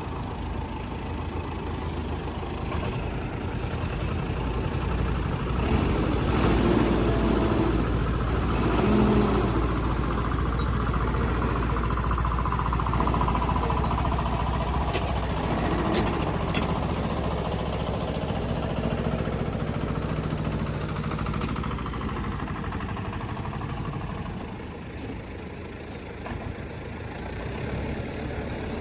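Heavy construction machine's diesel engine running under load, growing louder about a fifth of the way in and easing off near the end, with a few sharp knocks and clanks.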